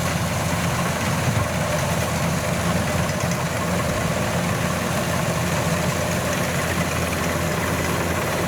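Kubota DC-93G combine harvester's diesel engine running steadily while harvesting rice, a constant loud machine drone with no change in speed.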